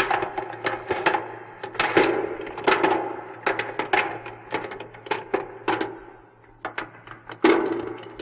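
A rapid, irregular clatter of knocks and rattles, each ringing briefly, thinning out for a moment just past the middle, over a steady low hum.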